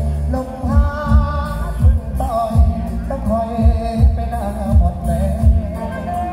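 A song with a singer's wavering melody over a deep, downward-sweeping kick drum about every two-thirds of a second, played loud through large sound-system speaker stacks.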